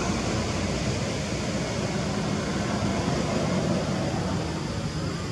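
Steady low rumble and hiss of road traffic, with no distinct events.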